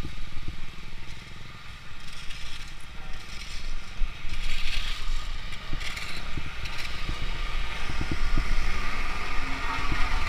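Motorcycle riding slowly over a rough, unpaved gravel stretch of road, heard from on board: steady low rumble with wind on the microphone and tyres scraping over loose gravel. A series of short knocks from bumps comes in the second half.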